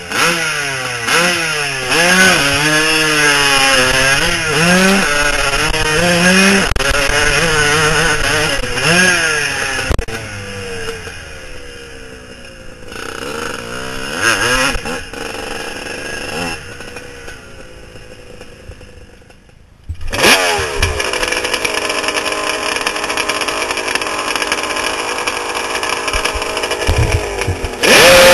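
Kawasaki KX dirt bike engine at hard throttle on a hillclimb, its pitch rising and falling with throttle and gear changes. It eases off about halfway, breaks off abruptly, then runs at a steady pitch before revving up again near the end.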